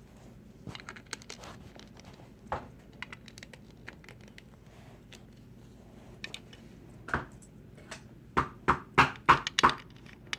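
Small clicks and knocks of a Play-Doh cup being handled on a table, ending in a quick run of about six sharp knocks near the end, as the stuck dough is worked out of the cup.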